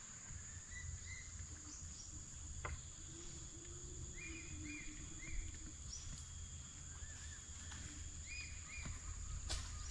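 Riverside forest ambience: a steady high-pitched insect drone with scattered short bird chirps, over a low rumble. A click comes near the middle and another near the end.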